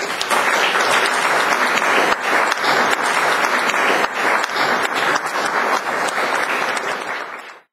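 Audience applauding: dense, steady clapping from a roomful of people, which cuts off suddenly near the end.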